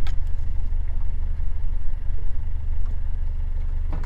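Fishing boat's engine idling, a steady low drone, with a brief click right at the start.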